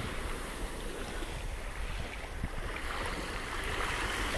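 Small waves washing up onto a sandy beach, with a steady low rumble of wind on the microphone.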